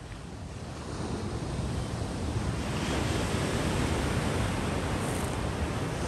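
Ocean surf breaking on a sand beach and washing up the shore, a steady rush that swells from about a second in to its loudest in the middle.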